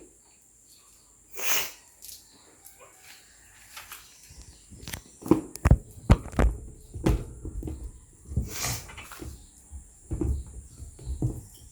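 Pet dogs scuffling and moving about. There is one short hiss-like burst about a second and a half in, then from about five seconds a busy run of thumps and knocks.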